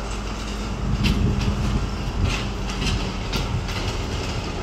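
Sri Lanka Railways Class S12 diesel multiple unit rolling past: the power car's diesel engine hums steadily, with a few sharp clicks of wheels going over rail joints.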